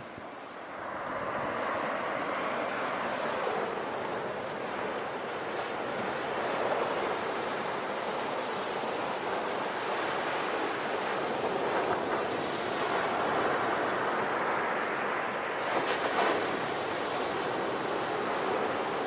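Sea surf: waves washing onto the shore in a steady rush that swells about a second in, with a sharper hiss of breaking water near the end.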